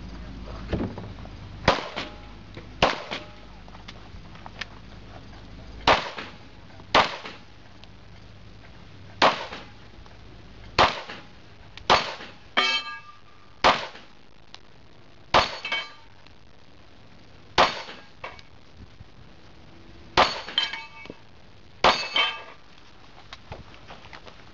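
Pistol shots fired one at a time, about a dozen in all, one to two seconds apart with a few longer pauses. After several of the shots a metallic ring follows, steel targets ringing when hit.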